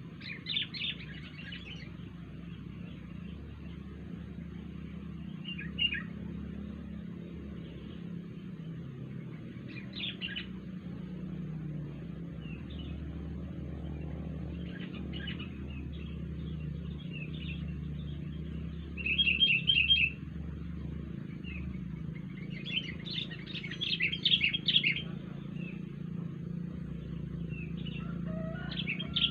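Wild sooty-headed bulbul (kutilang) calling: short bursts of quick, high chirps every few seconds, with the longest runs about two-thirds of the way through. A steady low hum runs underneath.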